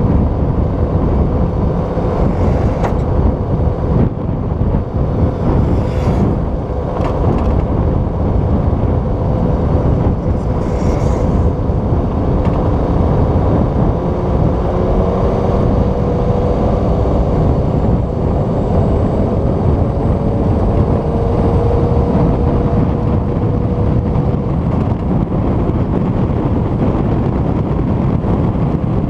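Steady vehicle running noise and wind rush from a 4x4 driving at speed on a paved highway, picked up by a camera mounted outside on the roof. Faint engine tones run through it, and there are brief swells about 3, 6 and 11 seconds in.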